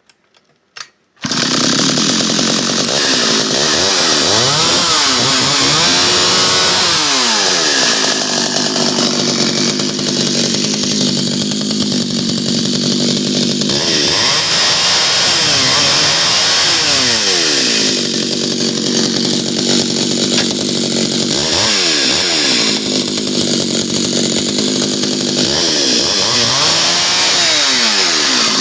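Pioneer Partner P42 two-stroke chainsaw engine catching about a second in and running loud, revved up and down between idle and high speed several times.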